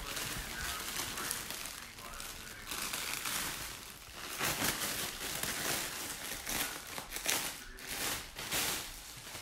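Clear plastic packaging around a collapsible cat tunnel toy crinkling as it is handled and dangled, in irregular bursts.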